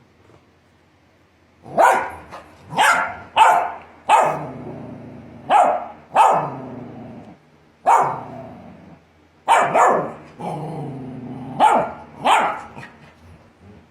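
Australian Shepherd barking: about a second and a half of quiet, then around a dozen loud barks in irregular ones, twos and threes.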